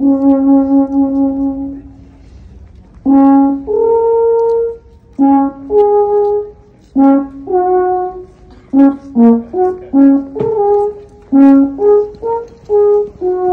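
A brass horn playing a slow tune of separate notes, some short and some held for a second or more, in phrases with brief pauses between them.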